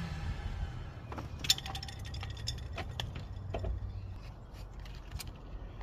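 Scattered light clicks and clinks of small hard objects being handled, at irregular moments, over a faint steady low hum.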